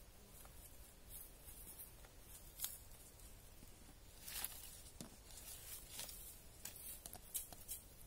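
Faint, irregular scraping and scratching of a small hand digging tool working through dry soil and leaf litter, with a slightly louder scrape about four and a half seconds in.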